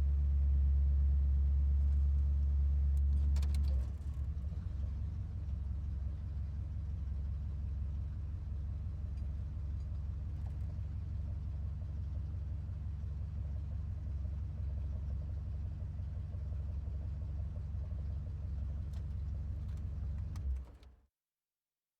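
Muscle car engine running with a deep, steady rumble, then dropping suddenly at about four seconds to a quieter, even idle that runs on until it cuts off abruptly near the end.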